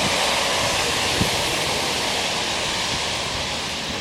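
Heavy rain pouring down in a steady hiss, with one short knock about a second in.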